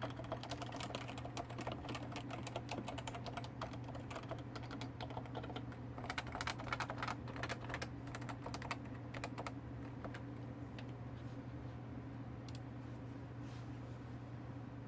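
Typing on a Topre Realforce 104u keyboard with 45g electrostatic capacitive switches and ABS keycaps, a fast run of soft keystrokes that thins out after about ten seconds to a few single presses.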